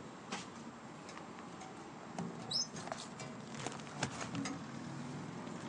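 Light scattered clicks and rustles of handling at a street mailbox, with one short high chirp about two and a half seconds in.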